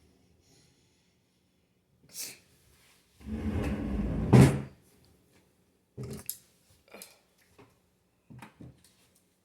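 Household handling noises: a knock, then a rough scraping or rustling clatter lasting over a second, followed by a few scattered clicks and knocks, like cupboard doors or drawers being worked.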